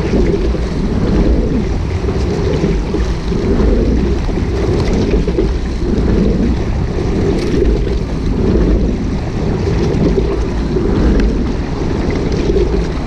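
Wind buffeting the microphone of a camera on the bow of a rowing shell moving through the water, a low rumble that swells and fades every second or so.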